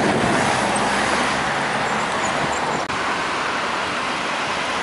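Road traffic on a city street. In the first second or so a car passes close, with a low engine note, followed by steady traffic noise and a brief break about three seconds in.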